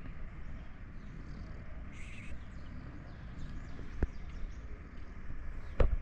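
A cat purring close to the microphone: a steady, low rumble. Sharp knocks about four seconds in and near the end, the last one the loudest.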